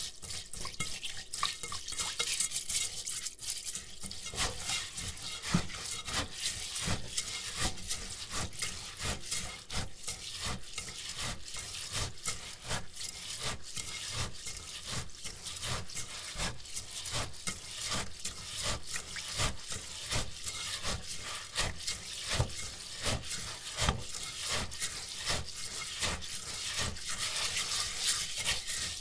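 Raw rice being washed by hand in a bowl with water: the grains are stirred and scrubbed against the bowl in quick, repeated strokes, giving a gritty swishing rub with small clicks.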